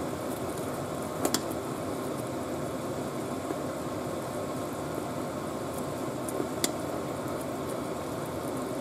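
Glutinous rice in coconut milk and sugar simmering in a pot while a plastic spatula stirs it, under a steady hiss. The spatula clicks sharply against the pot about a second in and again later on.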